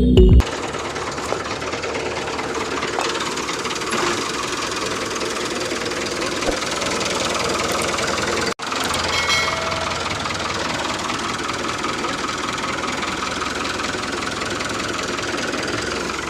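Mini tractor running with a steady engine-like mechanical sound, cut off for a moment about eight and a half seconds in.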